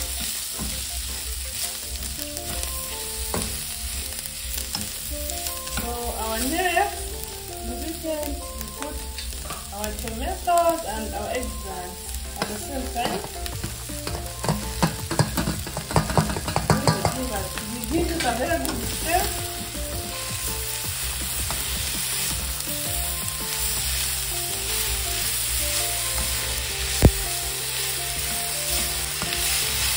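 Chopped beef tripe frying in a metal wok with onions and carrots, sizzling steadily while a spatula stirs and scrapes the pan. In the middle there is a louder run of clatter and scraping as sliced tomatoes and more chopped ingredients are tipped in and stirred through. Near the end there is one sharp knock.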